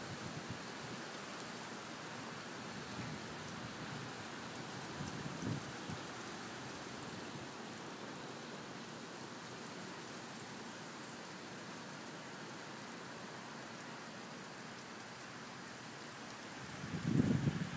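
Steady rain falling during a thunderstorm, an even hiss, with a few faint low rumbles; near the end a low rumble swells up.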